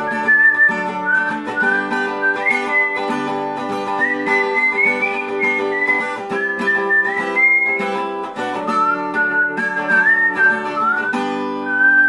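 Background music: a whistled melody, sliding between notes, over plucked acoustic guitar chords.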